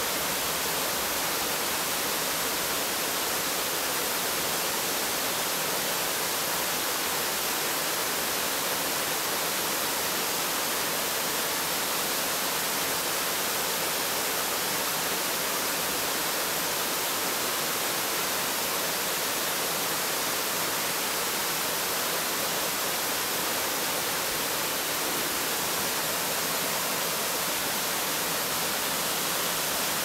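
Steady rushing of an 8 m waterfall that a rock splits into two streams, falling into a plunge pool. It is a constant, even hiss of water with no change in level.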